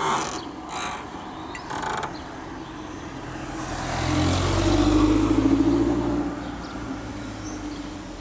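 A passing motor vehicle: its engine sound swells over a few seconds, is loudest about five seconds in, then fades away. Three short rustling bursts come in the first two seconds.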